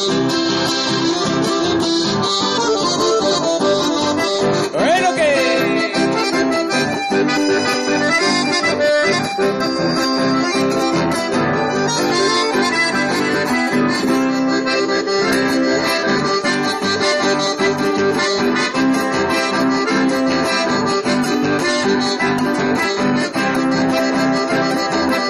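Live instrumental chamamé: a button accordion carries the melody over two strummed acoustic guitars at a steady dance rhythm. A brief rising-and-falling whoop cuts in about five seconds in.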